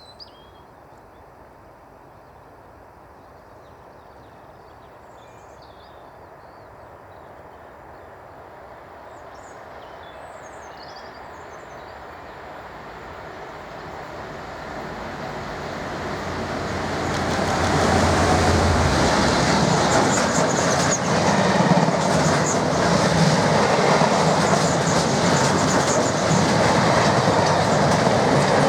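Class 68 diesel-electric locomotive approaching and growing steadily louder for about seventeen seconds, then passing with a deep engine note. Empty ballast wagons follow, clattering over the rail joints with a clickety-clack to the end. Birds chirp faintly in the first half.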